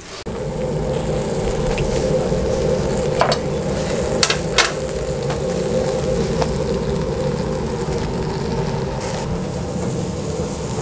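Adana kebab skewers sizzling on a charcoal grill over a steady low hum, with a few sharp clicks in the middle.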